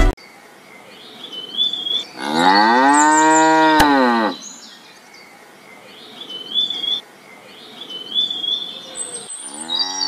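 A cow moos once, a long call that rises and then falls in pitch, and starts a second moo near the end. Faint short chirps come in the quiet gaps, and there is a single sharp click near the end of the first moo.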